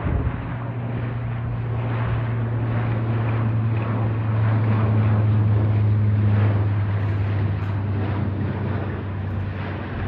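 Twin-engine turboprop airliner flying low overhead: a steady, low propeller drone over engine noise. It grows to its loudest about five or six seconds in and then fades.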